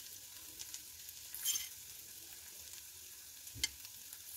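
Fork stirring and fluffing cooked quinoa in a steel pot: soft stirring with light scrapes and clicks of the fork against the pot, the loudest scrape about a second and a half in, over a faint steady hiss.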